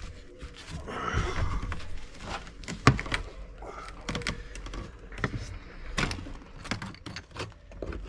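Knocks, bumps and clatter of someone clambering onto wooden roof boards, kneeling on them and picking up hammers, with one sharp knock about three seconds in.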